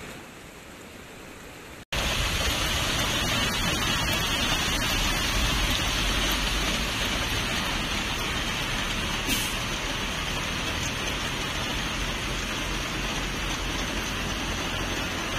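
Heavy rain and floodwater: a steady, loud rushing hiss with a low rumble underneath. A quieter hiss of the same kind cuts off about two seconds in, and the louder one starts at once.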